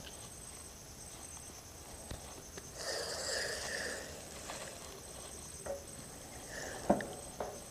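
Handling noise of a spinning rod and reel: a rustling swish about three seconds in, a few small clicks, and one sharp click near the end.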